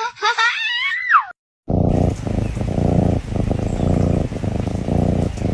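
A cat's short, high, wavering cries ending in one falling cry, then after a brief break a kitten purring loudly and steadily.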